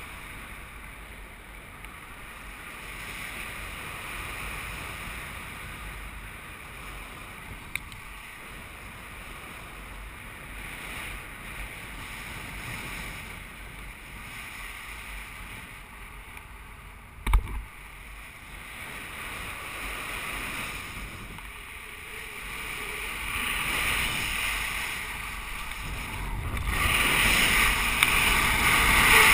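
Wind rushing over the microphone of a paraglider in flight, a steady hiss that grows louder in the last few seconds. One sharp thump a little past halfway.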